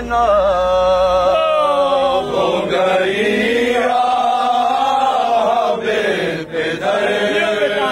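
Men's voices chanting a soz o salam marsiya lament in Urdu. A lead voice sings a wavering, ornamented line for the first two seconds, then several voices chant together.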